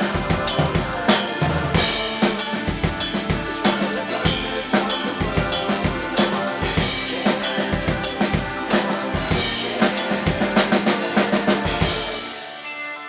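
Rock drum kit played busily (bass drum, snare and cymbals) along with a rock band recording. Near the end the drums and bass stop and the music thins out.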